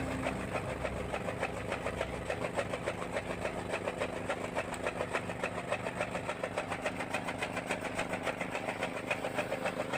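A small engine running steadily with an even beat of about five pulses a second, most likely the farm's small engine driving a fodder chaff cutter.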